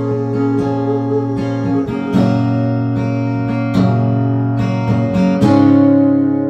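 Acoustic guitar strummed in chords. Fresh strums come about two seconds in and again a little before four seconds, and a last chord near the end is left ringing.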